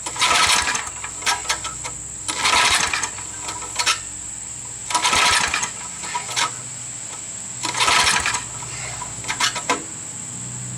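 Tecumseh V60 engine of an old Snapper riding mower being pull-started four times, each pull a short cranking whirr of under a second, about every two and a half seconds, without the engine catching.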